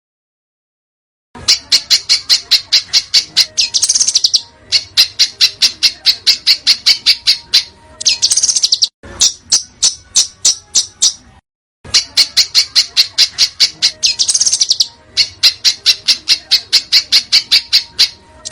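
A small songbird's rapid, harsh call notes repeated about four or five times a second in long runs: a looped 'tembakan' (sharp shot) call of the kind used to train competition songbirds. The calls start after about a second of silence and break off briefly a little past the middle before the same run repeats.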